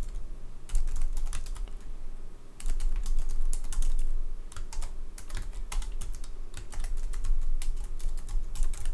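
Computer keyboard being typed on, with quick runs of keystrokes separated by short pauses.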